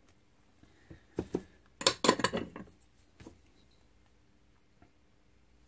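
A few sharp clicks, then a short clatter of small hard objects knocking together about two seconds in, and one more click a second later: a soldered circuit board and small hand tools being handled and set down on a workbench.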